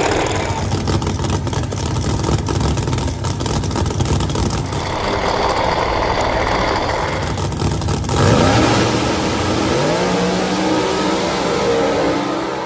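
No-prep drag cars, a first-generation Chevrolet Camaro among them, running loud and crackling at the start line. About eight seconds in they launch, the engine pitch climbing in rising sweeps as they accelerate away down the track.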